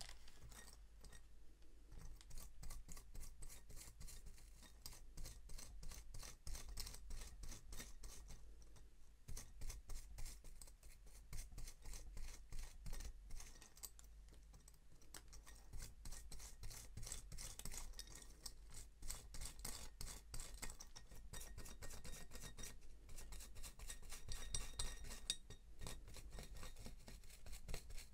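Quick scratchy scrubbing strokes of a small brush worked back and forth over a metal watch part, many strokes a second, keeping up steadily with only brief pauses.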